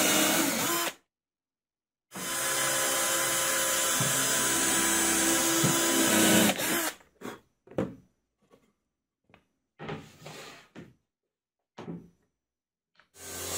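Cordless drill running under load as it bores holes into a plywood block, in two steady spells broken by a cut. Then a few short knocks and handling clicks, and near the end a table saw starts running.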